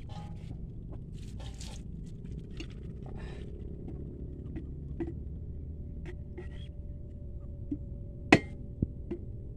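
Bolo knife scraping the husk fibres on a coconut, then the blade striking the coconut shell sharply a few times near the end, the first strike the loudest, to crack the nut open.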